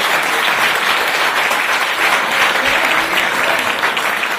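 Audience applauding: a steady round of clapping from a roomful of people.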